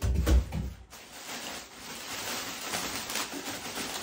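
A low, dull thump in the first second as part of a rowing machine's frame is moved or set down, followed by quieter handling and rustling of the parts.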